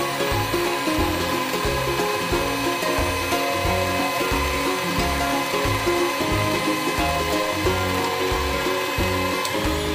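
Electric hand mixer running steadily, its beaters whipping eggs and sugar into a batter in a bowl. Background music with a rhythmic bassline plays over it.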